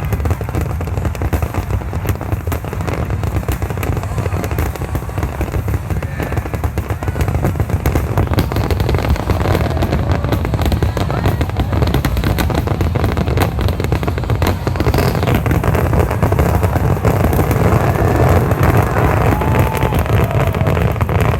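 Aerial fireworks in a dense, continuous barrage of booming bursts and crackles, growing louder about eight seconds in.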